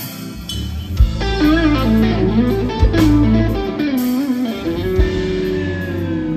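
A live band playing a blues. An electric guitar plays a lead melody full of string bends and vibrato, then holds one long note near the end, over bass guitar and a drum hit about every two seconds.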